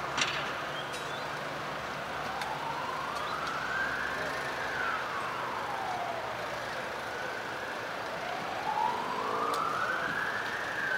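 An emergency vehicle's siren on a slow wail, its pitch rising and falling and peaking twice, over a low steady rumble. A single sharp click comes just after the start.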